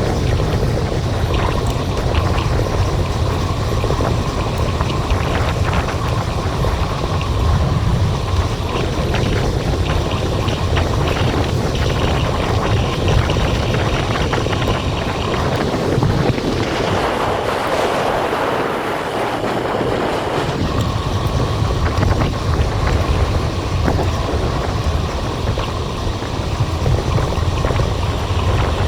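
Wind buffeting a GoPro action camera's microphone with road and tyre noise while riding a bicycle, a steady low rumble and hiss. About two-thirds of the way through the rumble eases for a few seconds and a brighter hiss takes over, then the rumble returns.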